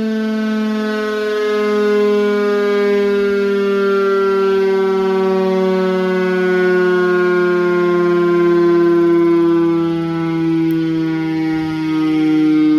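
Secomak CS8 electro-mechanical siren sounding loudly, one rich tone whose pitch slides slowly and evenly downward.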